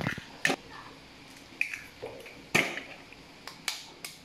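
Eggs being cracked open with a kitchen knife: several sharp taps of the blade against the shells, at irregular intervals.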